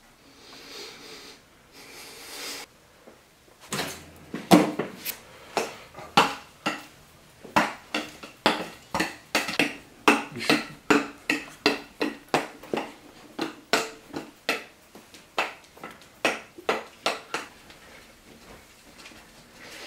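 A wooden spoon and another kitchen utensil striking each other again and again in a mock sword fight. Starting about four seconds in, sharp knocks come roughly twice a second in an uneven rhythm, each with a brief ring.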